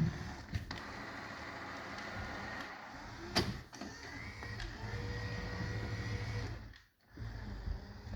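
Small electric motor of a Moosoo cordless vacuum whirring unsteadily, with a sharp click about three seconds in, then cutting out briefly about seven seconds in before running again.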